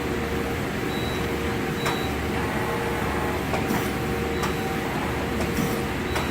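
Okuma LU45M CNC lathe running under power: a steady machine hum with a few fixed tones, and a handful of sharp clicks scattered through it.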